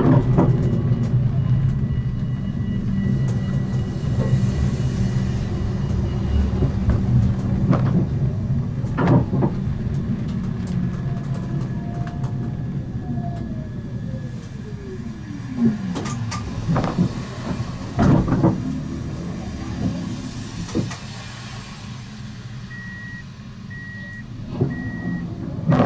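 Siemens Avenio low-floor tram slowing to a stop: a steady low running hum fades as the traction motor's whine falls in pitch, with a few knocks. Near the end an evenly repeating electronic beep sounds, the tram's door warning signal.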